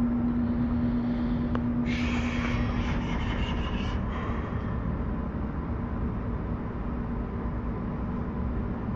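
Low steady rumble inside the wheelhouse of a cargo ship under way. A steady hum fades out about three seconds in, and a brief rush of hiss passes between about two and four seconds.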